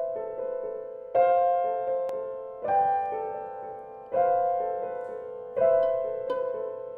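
Grand piano playing solo chords, struck about every second and a half, each left to ring and fade before the next.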